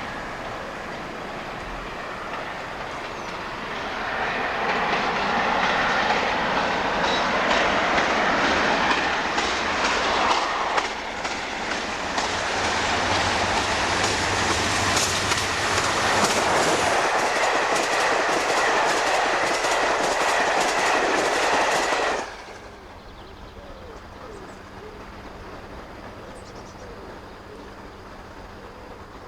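A diesel-hauled train passing, its wheels clicking rhythmically over the rail joints. The sound builds about four seconds in, cuts off suddenly later on, and a much quieter steady hum remains.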